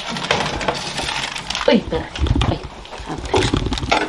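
Metal baking sheet scraping and clanking as it is pulled out of a masonry oven and set down on a table.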